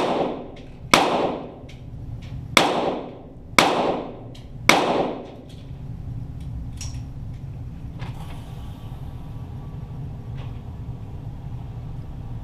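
Five shots from .22 Walther GSP target pistols, unevenly spaced over about five seconds, each followed by a short reverberant tail, heard from near the target; a few faint clicks follow.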